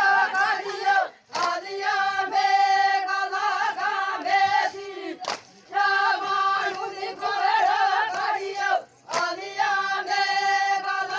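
A high woman's voice singing a traditional Adivasi folk song in long held, wavering phrases, with short breaths between them about a second in, near the middle and about three-quarters through.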